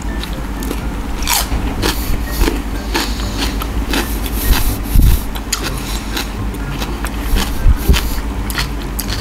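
Close-up crunching and chewing as crisp raw fruit pieces of a rujak are bitten and eaten, irregular crisp bites throughout, with a couple of louder low thumps about five and seven and a half seconds in.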